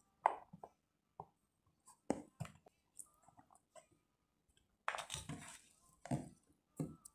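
Scattered small clicks and knocks of hands picking pomegranate seeds and dropping them into a plastic container. About five seconds in come louder rubbing and bumping sounds as a hand reaches to the phone that is recording.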